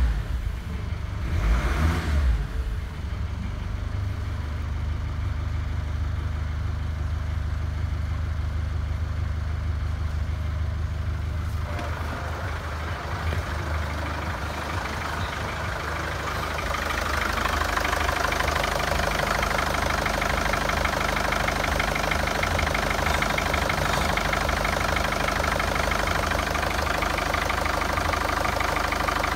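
Mercedes-Benz OM611 2.2-litre four-cylinder common-rail diesel (CDI) running. It is revved briefly near the start, then settles to a steady idle. It is heard muffled from inside the cab at first, then louder and more clattery from the open engine bay after about 17 seconds.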